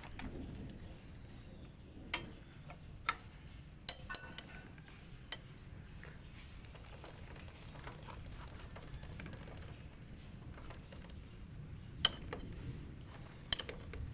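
Ring spanners clinking against the motorcycle's rear chain adjuster nuts and bolts as they are turned. The sharp metal clinks come in a cluster between about two and five seconds in, with two more near the end.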